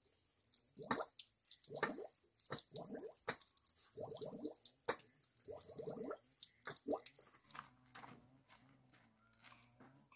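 Water from a hose trickling into a plastic basin: separate drips and plops, roughly one a second, with small clicks between them.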